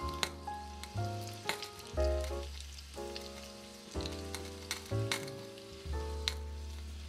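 Miniature spring rolls frying in hot oil in a tiny pot, a steady sizzle with sharp crackles and pops as rolls are lowered in. Background music of held melodic notes plays over it.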